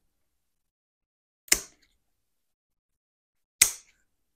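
Kitchen shears snapping through a raw chicken's breastbone: two sharp cuts about two seconds apart.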